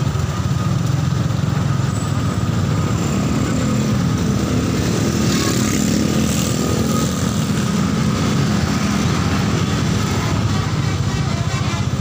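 Motorcycle engines and road traffic running in slow-moving traffic, a steady low rumble.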